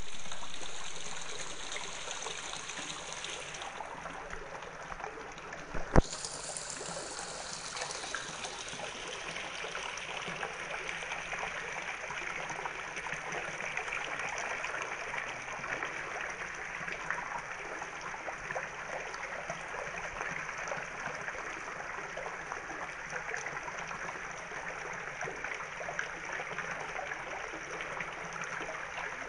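Water trickling steadily in a garden water feature, with one sharp click about six seconds in.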